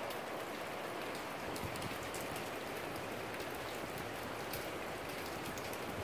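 Steady rain falling, an even hiss with faint scattered ticks of drops.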